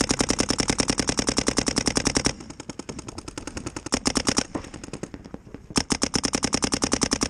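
Paintball markers firing rapid strings of shots, more than ten a second. Loud, close strings run until about two seconds in, come again briefly around four seconds and from about six seconds on, with fainter shots in between.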